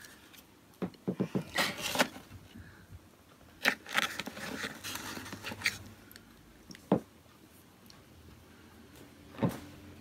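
Light clicks, knocks and scrapes of rings and a small ring box being handled on a table, in a few scattered clusters, with a sharp single click about seven seconds in and another near the end.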